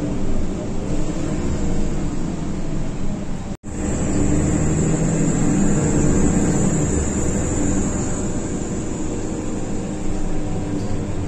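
Inside a moving city bus: steady engine drone and road noise. The sound cuts out for an instant a little over three seconds in.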